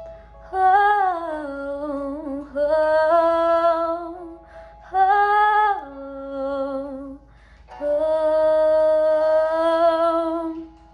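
A young woman singing solo and unaccompanied, a wordless closing melody in three long phrases, the last one held steady for nearly three seconds.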